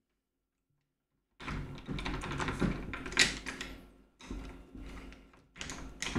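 Key turning in an opened Folger Adams jail-cell lever lock, with the levers and bolt clicking and scraping as the mechanism is worked by hand. It comes in several bursts, starting about a second and a half in. With the cover plate off, the loose parts do not work the same and the key does not turn smoothly.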